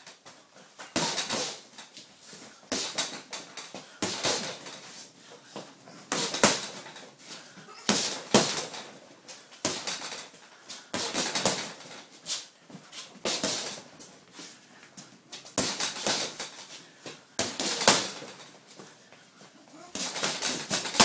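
Punches slapping a punch bag in short flurries of a few blows, one flurry every couple of seconds.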